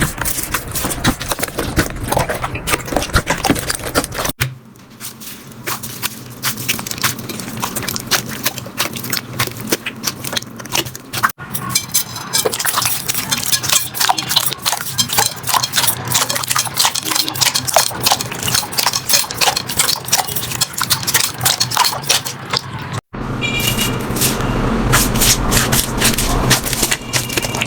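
Slime being squeezed, stretched and poked by hand, giving a dense run of sticky crackles, clicks and small pops. The sound breaks off abruptly three times, about four, eleven and twenty-three seconds in, and picks up again straight after.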